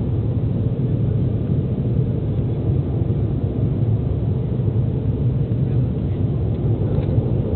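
Steady, loud cabin noise of an Embraer ERJ-195 climbing out after takeoff: its GE CF34-10E turbofans and the airflow, heard from inside the cabin as an even, deep noise.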